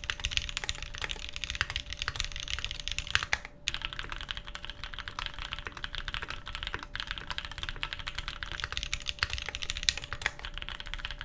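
Fast, continuous typing on a mechanical keyboard, close-miked, with a high-pitched clack to the keystrokes; the typing stops briefly about three and a half seconds in, then carries on.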